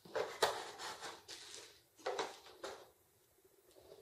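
Cardboard box and plastic packaging being handled as a bagged network switch is lifted out: a few short rustling, scraping bursts, then it goes nearly quiet about three seconds in.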